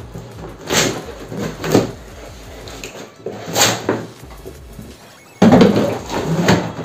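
Packing tape being pulled off cardboard boxes, with the cardboard scraping and rustling as the two boxes are pulled apart. There are a few short rips, then a louder, longer stretch of scraping about five seconds in.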